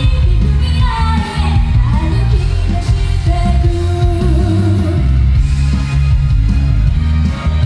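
A female singer singing live into a microphone over a loud pop-rock backing track with a heavy bass beat, played through a concert PA. She holds one long note a few seconds in.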